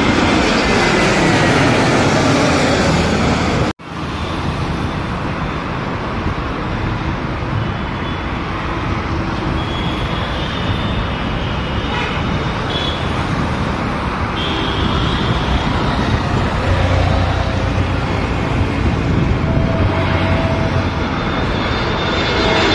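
Airbus A320-family jet airliners on low landing approach. At first one passes overhead with its engine whine falling in pitch, then the sound cuts out briefly. A steady roar of jet and road-traffic noise follows, and the next airliner's engine tones sweep in as it comes close near the end.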